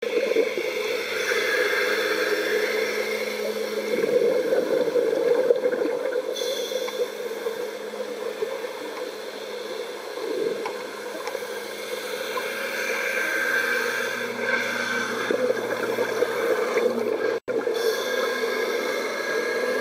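Underwater ambient noise picked up by a dive camera: a steady watery rushing with faint, even hums, swelling and easing slowly. It drops out for an instant near the end.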